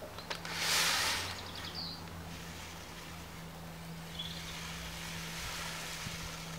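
Outdoor garden ambience: a small bird chirping a few times over a steady low hum, with a brief rushing hiss about a second in.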